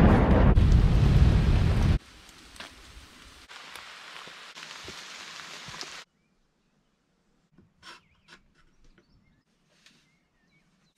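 A loud, deep thunder rumble with rain that cuts off abruptly about two seconds in. Steady rain falling through forest leaves follows, with a few soft ticks, and stops sharply about six seconds in, leaving near silence broken by a few faint clicks.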